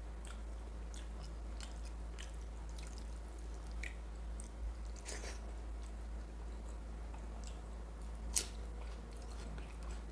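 Close-up chewing of mutton curry and rice, with irregular wet mouth clicks and one sharper click near the end.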